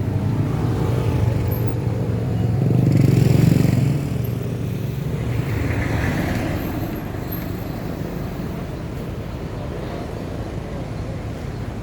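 A road vehicle passing close by, its engine rumble loudest about three to four seconds in, then falling away into steady traffic noise.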